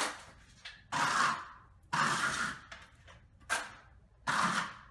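A wide steel taping knife drawn lightly across a textured ceiling, scraping through skip trowel joint compound mixed with sand. About five strokes, roughly one a second.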